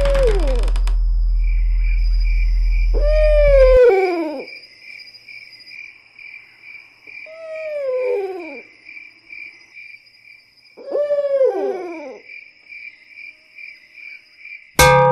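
Owl hooting four times, each a falling call about a second long, over a steady pulsing chirp of crickets. A low drone stops about four seconds in, and near the end a sudden loud hit with ringing tones comes in as a music sting.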